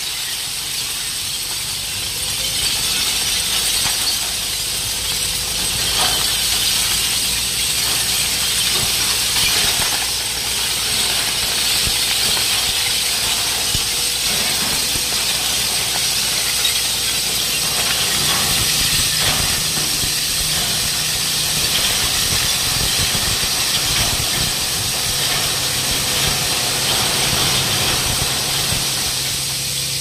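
Load of broken glass and rubble sliding out of a tipping dump truck and down a slope: a continuous rushing hiss of shards and debris pouring. The truck's engine runs underneath, its hum more noticeable in the second half.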